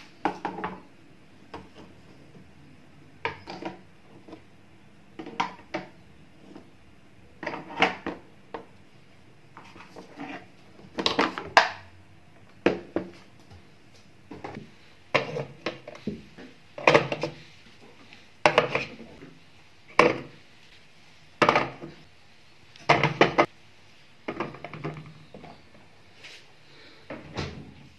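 Eggs being set down one by one into a hard plastic container and a fridge door egg rack, each a short clack of shell on plastic. There are about fifteen clacks at an uneven pace, roughly every one to two seconds.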